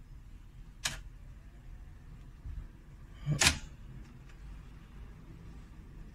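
Three sharp mechanical clicks from a Pioneer CT-F9191 cassette deck's transport mechanism, about two and a half seconds apart, the middle one the loudest, over a faint steady hum while the tape's playback is stopped.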